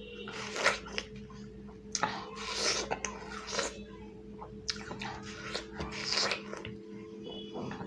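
Biting into and chewing watermelon close to the microphone: wet crunching in three clusters of bursts.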